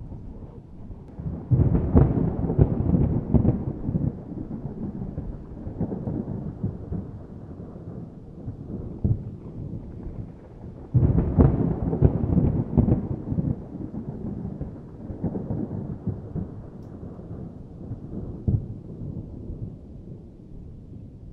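Thunder rumbling in two big rolls, one about a second and a half in and another about eleven seconds in, each with sharp cracks and a long fading rumble, and lighter rumbles in between.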